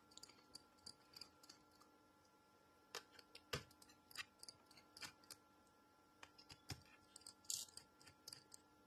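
Faint, scattered small clicks and ticks from a screwdriver undoing the bottom-case screws of a MacBook.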